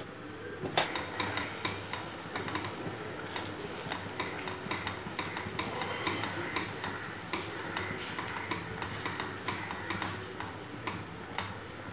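Silicone spatula stirring sugar and water in a stainless steel pan, making many light, irregular ticks and scrapes against the metal as the sugar dissolves, with a sharper knock about a second in.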